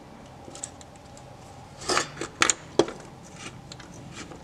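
Small metal hardware clinking as washers and a bolt are fitted into a driveshaft carrier's isolation dampers: a quick cluster of sharp metallic clicks about two seconds in, with lighter ticks of handling around them.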